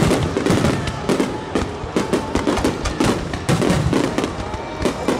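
A rapid barrage of aerial firework shells bursting, with dense, overlapping bangs several times a second.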